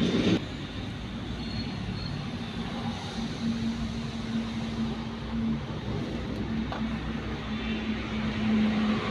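A vehicle engine running steadily, with a low, even hum.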